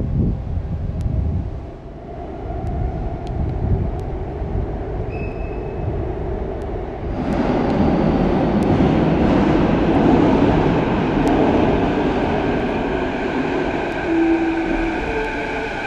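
Canada Line SkyTrain coming into an underground station from the tunnel. A rushing rumble swells suddenly about seven seconds in and stays loud, and in the last few seconds the electric motors add several steady whining tones.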